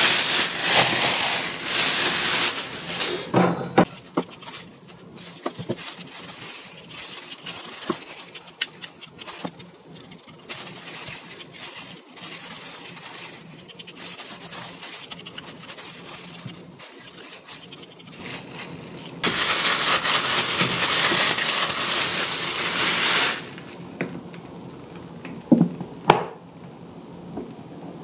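Plastic bag rustling and kitchen scissors snipping raw chicken thigh into a rice cooker's inner pot. There are two loud stretches of crinkling, one at the start and one about nineteen seconds in, with quieter small clicks and snips between them and a few sharp knocks near the end.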